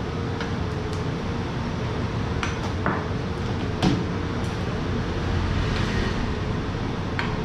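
Utensils clinking against soup bowls at a meal, a few sharp separate clinks with the loudest about four seconds in, over a steady background hum.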